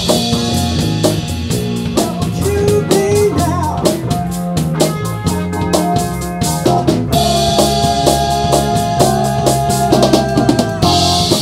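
Live rock band playing: a drum kit keeps a steady beat under electric bass and electric guitar. A long, high held note sounds for about three seconds past the middle.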